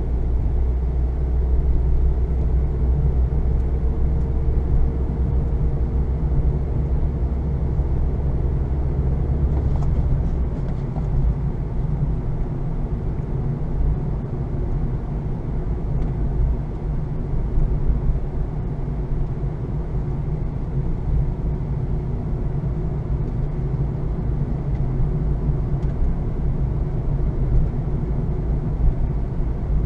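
2020 Honda Fit's 1.5-litre four-cylinder engine and road noise heard while driving, a steady low drone; the deepest part of the engine note drops away about ten seconds in.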